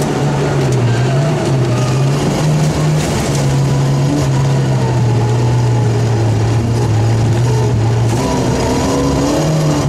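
Rally car engine heard from inside the cabin, running hard on a stage. Its pitch drops and rises a few times in the first seconds, holds steady for several seconds, then rises again near the end.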